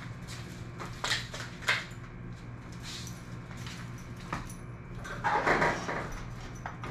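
Fishing rods handled and pushed into PVC pipe-coupler holders on a garage door: a few sharp knocks early, then a louder scraping rattle about five seconds in as a rod is slid into the holders. A steady low hum underneath.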